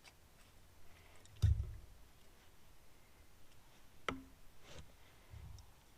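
Faint, sparse handling noises against a quiet background: a low thump about a second and a half in, a sharp click around four seconds, and a softer thump near the end.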